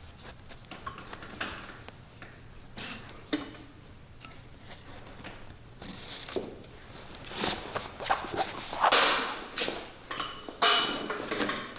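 Hands working on a leather work boot: old welt stitching thread is pulled out in short scratchy pulls, with scrapes and clicks that grow denser and louder in the last few seconds.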